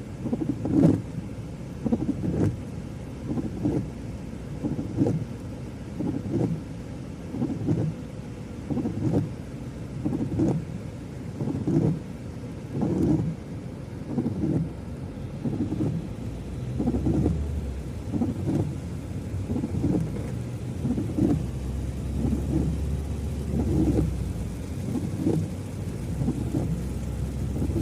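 Rain falling with thunder, in repeated low rumbling pulses about once a second; a deeper rumble sets in past the middle.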